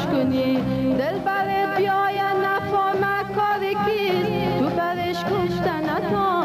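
A woman singing an Afghan song over instrumental accompaniment, her melody sliding and bending between held notes.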